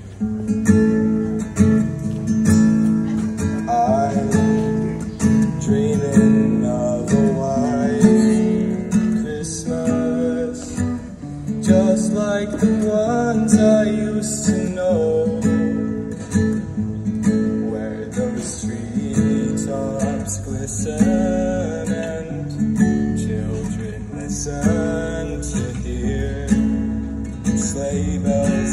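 Acoustic guitar strummed, playing a song.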